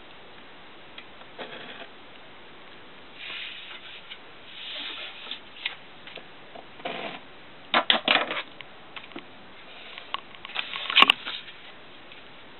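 Pen and marker scratching in short strokes along a ruler on paper, with small knocks and clicks from handling the tools. The loudest strokes come in two clusters, past the middle and near the end.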